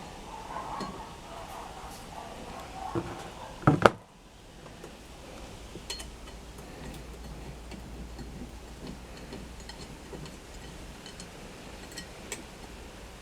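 Metal tools being handled and set down, with scattered light clinks and one loud double knock about four seconds in.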